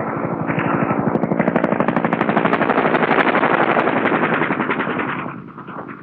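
Rapid automatic fire from an AH-1 Cobra helicopter gunship's turret gun: a long continuous burst that dies away about five seconds in.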